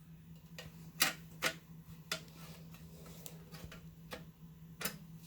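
A handful of irregular sharp clicks and light knocks from computer hardware being handled inside a desktop PC case as a hard drive is fitted into the drive bay, over a steady low hum.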